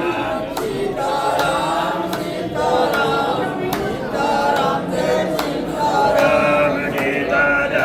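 A group of voices chanting a devotional chant together, many voices overlapping, with a sharp clap or small cymbal stroke keeping time a little more than once a second.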